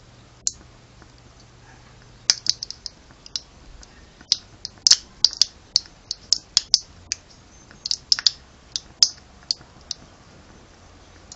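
Aluminum can stove's wick burning in melted petroleum jelly, giving off irregular sharp crackles and ticks. They come singly and in quick clusters, starting about two seconds in and dying away near the end.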